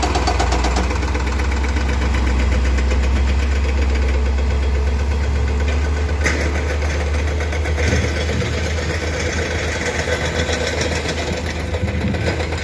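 Heavy construction machine's engine running steadily, with one short sharp knock about six seconds in.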